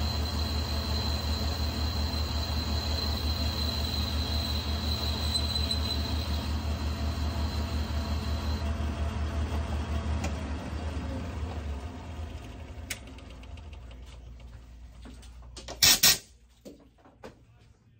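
Manual Logan metal lathe running steadily with a low pulsing hum and a thin high whine, the whine stopping about halfway through; the machine then winds down and goes quiet. Near the end come two loud, sharp clacks in quick succession and a few light clicks.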